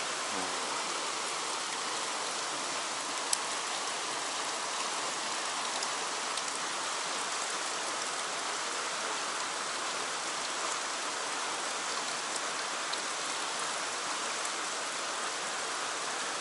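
Fast stream water rushing through a narrow rocky channel: a steady, even rush of whitewater, with one sharp click about three seconds in.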